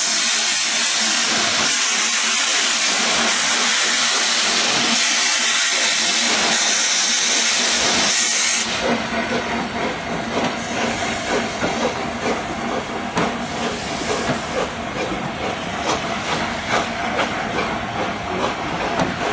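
Steam hissing loudly and steadily from LNER A4 Pacific 60009 as it pulls away, cutting off suddenly about eight and a half seconds in. After that comes the clatter of the coaches' wheels passing over rail joints.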